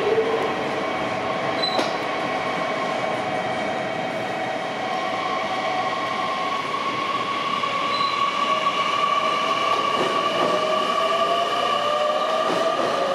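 JR Kyushu 813 series electric train pulling away and gathering speed. Its motor whine sets in with steady tones, then rises slowly in pitch over the running noise from about eight seconds in.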